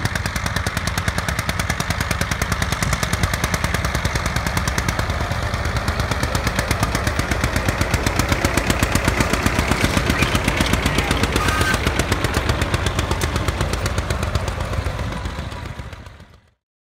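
John Deere 730 tractor's two-cylinder engine running under load, pulling a corn planter, with a rapid, even beat of exhaust pulses; the sound fades out near the end.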